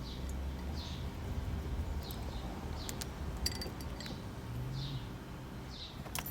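A small bird chirping repeatedly, short notes about a second apart, over a steady low background hum. A few light clicks about halfway through and near the end.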